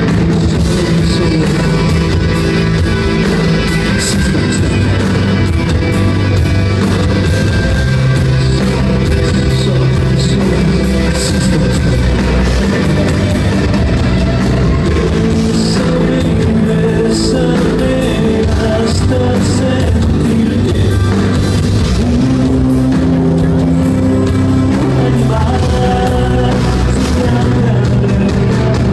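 Rock band playing a song live in a concert hall, heard from the audience: drums, bass, electric and acoustic guitars, with a singer. Loud and continuous.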